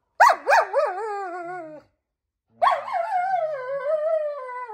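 German Shepherd making two long, wavering, howl-like complaining calls, each sliding down in pitch. It is grumbling in protest at being told to roll.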